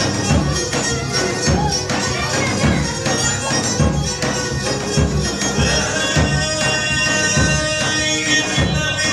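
Live Greek folk music: a daouli, a large double-headed drum, beaten in a steady rhythm under a sustained melody from a bowed lyra.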